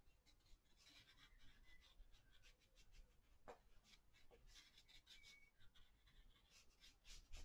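Faint, soft scratching of a watercolour brush working paint onto paper, in a near-silent room.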